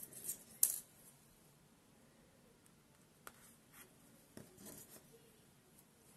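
Light clicks and rustles of hands sewing yarn hair onto a crocheted doll, a needle and yarn drawn through the crochet stitches. The sharpest click comes under a second in, with a few softer rustles around the middle.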